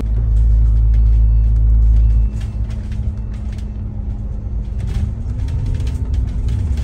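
Double-decker bus running on the road, heard from the upper deck: a heavy low rumble for the first two seconds, then a quieter drone with a whine that rises in pitch about five seconds in as the bus picks up speed.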